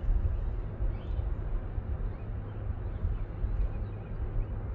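Outdoor background noise by a river: a steady rush with an uneven low rumble throughout.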